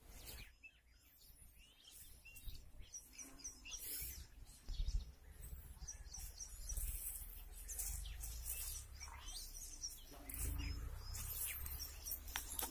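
Small birds chirping again and again in short high calls, over a low rumble that swells twice.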